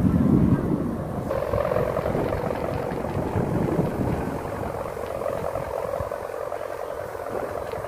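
Sendaren kite hummer on a large flying kite, droning steadily in the wind with the loud, helicopter-like 'ngukuk' hum it is built for. Wind rumbles on the microphone in the first second or so.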